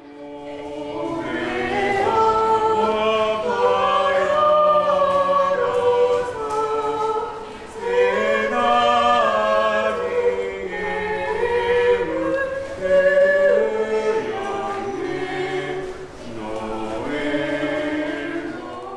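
A small group of voices singing a song together in parts, in phrases with short breaths between them.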